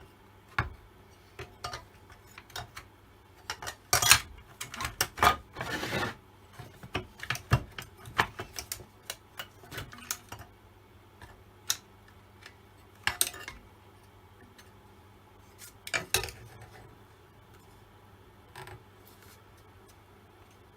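Metal chainsaw parts and hand tools clinking and knocking as they are handled, with a busier stretch of clatter about four to six seconds in that thins out to occasional clicks.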